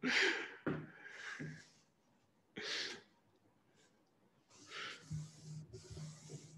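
A few short, breathy puffs and exhalations close to a microphone, with a longer hissy breath and a faint low hum in the last couple of seconds.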